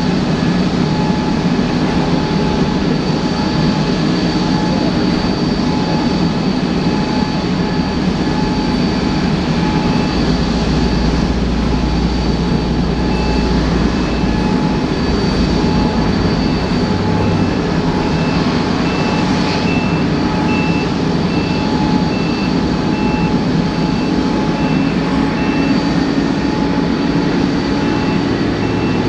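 Steady whine and rumble of an airliner on the apron during pushback. About halfway through, a reversing beeper starts, about one and a half high beeps a second.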